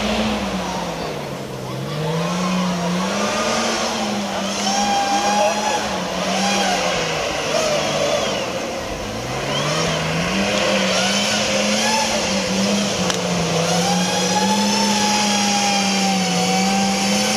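Off-road competition 4x4's engine revving up and down under load, falling back to low revs about a second in and again about nine seconds in, then held at high revs for the rest, with a higher whine running over it.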